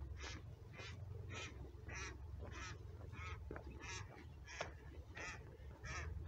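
A duck calling over and over, a steady series of rasping calls about every half second, over a low rumble.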